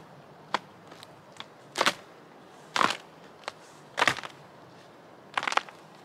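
Dry dead wood cracking and snapping as branches are broken off by hand for firewood. There are four loud sharp cracks about a second apart, with a few smaller snaps between them.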